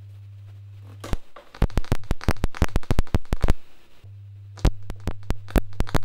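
Steady 100 Hz test tone through an off-brand USB-C to XLR cable, broken up about a second in by a rapid string of sharp pops and crackles as the XLR is hot-plugged with phantom power live. The tone drops out for a few seconds, comes back, and more crackling follows near the end.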